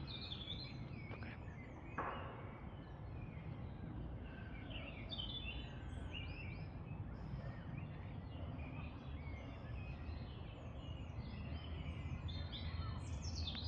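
Small birds chirping and singing in woodland, many short calls overlapping, over a steady low rumble, with one short noise about two seconds in.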